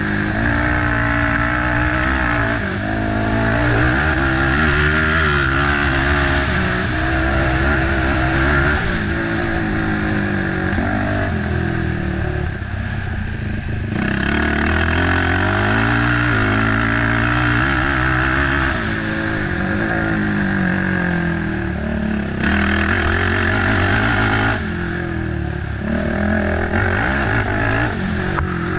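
Race quad's engine revving hard under load, its pitch climbing and dropping again and again with throttle and gear changes.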